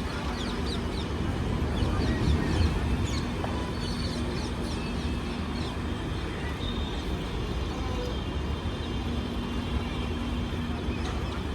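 A train at a railway station giving a steady low rumble with a constant hum. Short high squeaks are scattered through the first half, and the rumble swells slightly about two seconds in.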